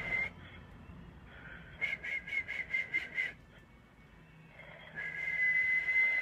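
A man whistling a high note into a desk telephone handset, as a sound treatment for a caller. The note stops just after the start. Around two seconds in it comes back as a fluttering whistle, pulsing about five times a second. Near the end a steady high whistle is held again.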